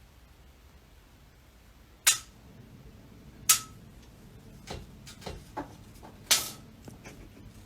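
Sharp knocks or clicks: three loud ones spaced a second or more apart, with a few softer taps between the second and third.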